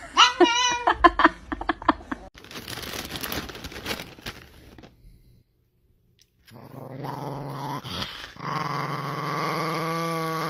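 A small dog growling steadily over the last few seconds. The first two seconds hold short, high, wavering vocal cries, followed by a brief gap of near silence.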